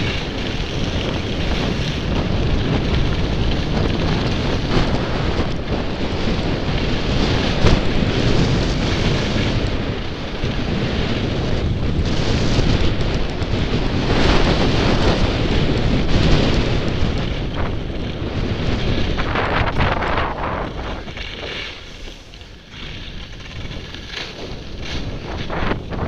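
Rushing wind buffeting the microphone of a camera worn by a skier descending a piste fast, mixed with the hiss and scrape of skis on the snow. It eases off over the last few seconds as the skier slows to a stop.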